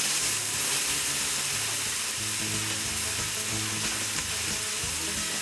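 Chopped vegetables dumped onto a hot Blackstone flat-top griddle coated with canola oil, sizzling loudly. The sizzle starts suddenly as they land and holds steady.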